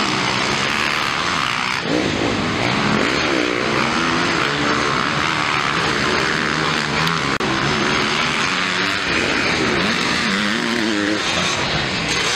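Motocross bike engines revving up and down as riders race around the track, several engines overlapping with pitch that rises and falls through the gears.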